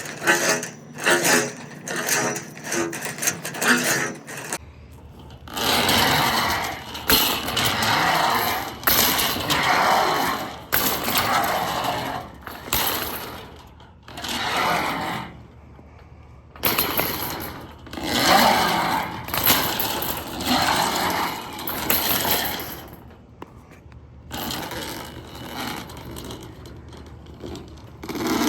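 Steel sectional drain cable, RIDGID K-60 sections, being fed by hand down a roof vent pipe with no machine, rattling and scraping against the pipe in repeated pushes. A quick run of metallic clicks comes first, then rising and falling swells of scraping a second or two apart.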